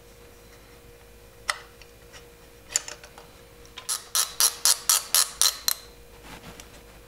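Sharp metallic clicks from hands working a throttle cable's metal fittings: a single click, a couple more, then a quick even run of about eight clicks, about five a second.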